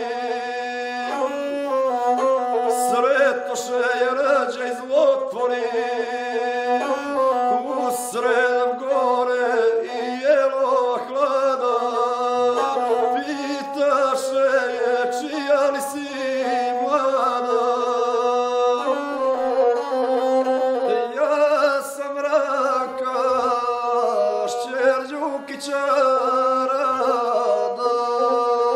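Gusle, the single-string bowed folk fiddle, played continuously while a man sings a South Slavic epic song to it, voice and instrument moving together in small steps around a steady low tone.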